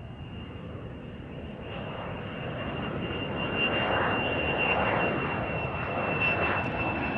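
A steady rushing, engine-like noise with a thin, steady high whine on top. It swells over the first few seconds and then holds.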